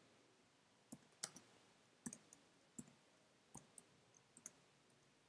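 Faint computer keyboard keystrokes: about a dozen separate, irregularly spaced clicks as a few words are typed.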